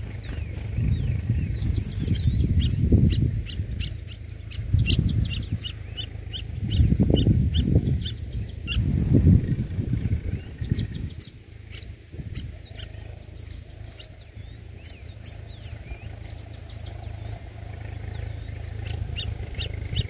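Red-whiskered bulbul nestlings begging at the nest, with rapid trains of short high chirps that come in bursts through the first ten seconds or so and again near the end. Loud low rumbling surges lie under the chirps, several of them in the first ten seconds.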